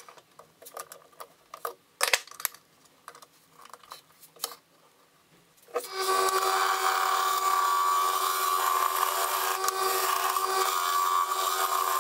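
Clicks and knocks of a chuck key and hands tightening a wooden blank into a metal lathe chuck. About six seconds in, the wood lathe starts running with a steady hum while a turning tool cuts the spinning wood with a steady scraping hiss.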